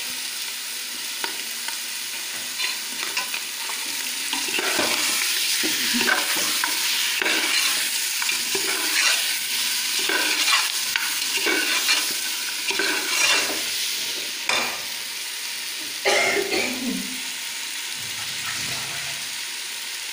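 Chicken and ground ginger-garlic-onion paste frying in a pressure-cooker pot, a steady sizzle with a metal ladle stirring and scraping against the pot in irregular strokes, busiest through the middle and easing off near the end.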